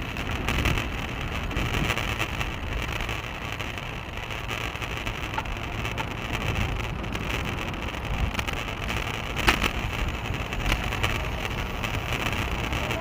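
Wind noise on a bicycle-mounted action camera's microphone over the steady rumble of a road bike riding on pavement. There is a sharp knock about nine and a half seconds in.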